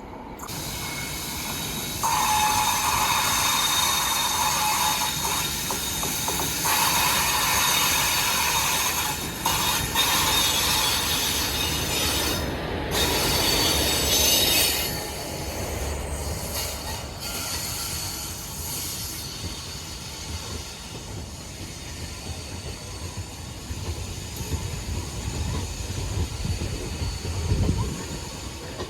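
Indian Railways train running past on the track. Wheel and rail noise rises sharply about two seconds in and stays loud with high squealing tones for some twelve seconds, then eases to a lower rumble.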